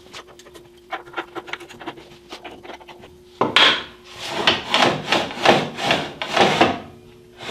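Aluminium Accu-Slice sliding table being pushed back and forth across the band saw's table while it is aligned: light taps and clicks at first, then, a little after three seconds in, a run of about seven rubbing strokes, roughly two a second.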